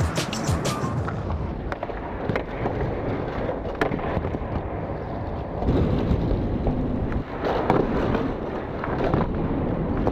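Skateboard wheels rolling with a continuous rough rumble, broken by several sharp clacks of the board.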